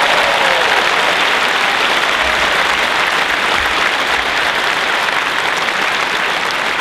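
A large audience applauding steadily, welcoming a speaker onto the stage.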